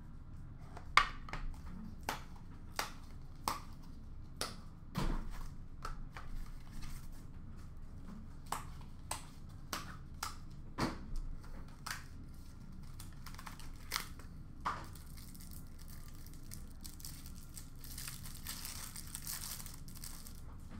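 Hockey trading cards and card packs being handled: a string of sharp clicks and taps from cards and small card boxes. Near the end comes a denser crinkling, as a foil pack wrapper is torn open.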